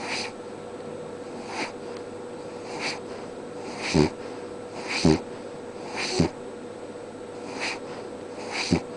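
Dog snoring in its sleep: a short snore about every second, several of them with a low, buzzing rattle.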